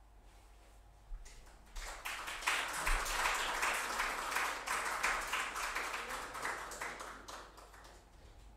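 A small audience applauding, starting about a second in, swelling quickly and then dying away near the end.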